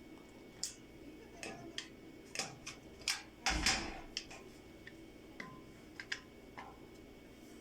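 A series of irregular sharp clicks and light knocks, with the loudest short clatter about three and a half seconds in.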